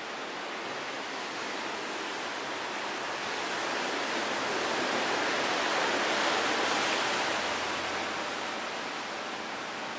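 Even rushing noise of coastal wind and sea, swelling to a peak about six seconds in and then easing.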